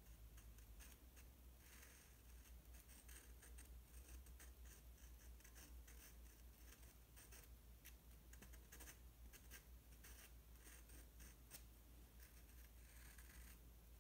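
Faint, irregular scratching and dabbing of a pen tip on sketchbook paper, in short strokes with a low steady hum beneath.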